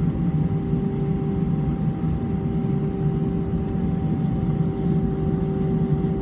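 Airbus A319's jet engines running steadily: a constant low rumble with a steady droning whine over it, no rise or fall in pitch.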